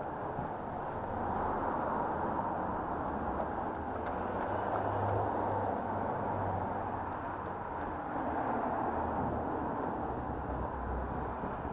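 Muffled, steady road noise of passing car traffic, swelling and easing a few times as cars go by.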